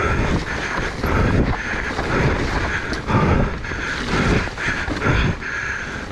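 Electric mountain bike being ridden over a muddy trail: rumbling tyre and frame noise with wind on the microphone, swelling and dipping about once a second.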